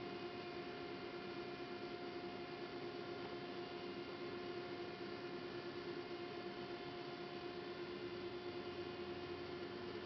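Steady electrical hum from a powered-up CNC lathe and its control, made of several steady tones over a faint hiss. One of the higher tones drops out about three-quarters of the way through.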